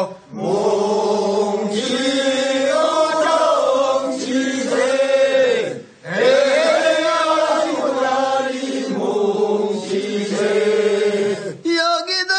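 Singing of a Korean rice-seedling-pulling work song (mojjineun sori): a chanted, call-and-response style phrase sung twice as two long lines, with a short breath break about halfway.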